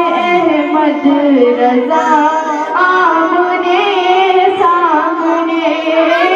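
A female voice singing a naat, an Urdu devotional poem in praise of the Prophet, in a flowing melody with long held, ornamented notes.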